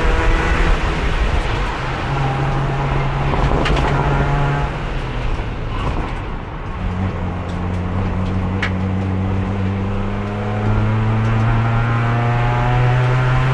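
Race car engine heard from inside the car, running hard, easing off about halfway through, then climbing slowly and steadily in revs as it pulls out in fourth gear, the only gear the failing transmission will hold. A couple of sharp clicks cut through about a quarter and two thirds of the way in.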